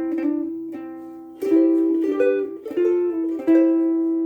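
Soprano ukulele from Cocobolo Ukuleles played as a short fingerpicked melody, single notes and small chords plucked every half second or so, the last note left ringing and fading. Its strings are ones the player finds a little too thin and low in tension, giving a somewhat plinky tone.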